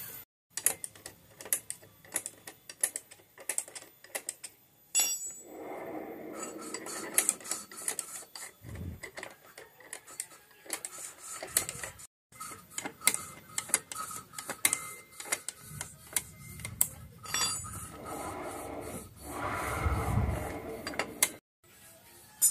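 Metal hand tools clinking and tapping as a combination spanner works on the rear axle and brake fittings of a Honda Vario scooter. The sound comes as many sharp, irregular clicks with some handling noise, broken by a few short silences.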